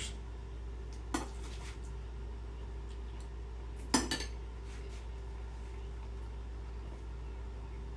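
Dishes and utensils clinking: a light clink about a second in and a sharper, louder one about four seconds in, over a steady low hum.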